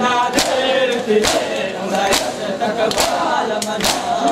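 A crowd of men doing matam, slapping their chests together in time: five sharp slaps, a little under a second apart, under a noha chanted by male voices.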